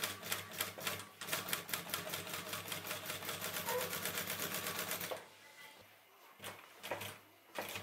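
Industrial flatbed sewing machine stitching leather, its needle clattering fast and evenly, about seven or eight stitches a second, over a steady motor hum, and stopping about five seconds in. A few single clicks follow near the end.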